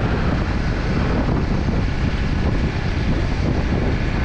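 Steady wind rush buffeting the microphone of a moving motorcycle, with road noise underneath.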